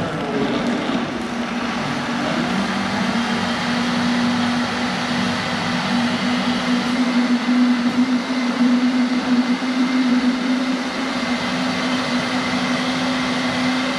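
Countertop high-speed blender running steadily at full speed, blending a thick green smoothie of leafy greens, whole fruit and soy milk. The motor keeps a steady hum under a dense churning hiss, a little louder partway through.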